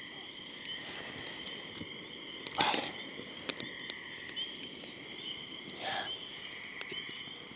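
A steady trilling animal chorus at two high pitches, with scattered clicks and two louder knocks about two and a half and six seconds in.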